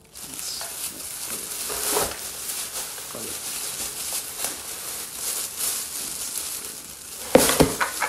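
Loose garden dirt pouring and sliding out of a bag into a plastic planter: a steady gritty hiss with crackly rustling of the bag. A few louder knocks come near the end as the bag and soil are handled in the pot.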